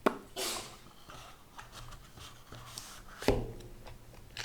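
Hands handling a smartwatch and its box and packaging: a sharp click at the start, a brief rustle, scattered small clicks and taps, and a louder thump a little after three seconds as something is set down.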